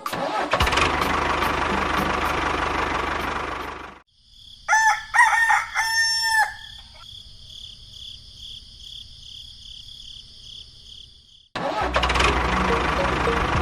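A rooster crowing in the middle, a pitched call in several parts lasting about two seconds. It is set between stretches of loud, steady mechanical noise with a low hum: about four seconds of it at the start, and again from near the end.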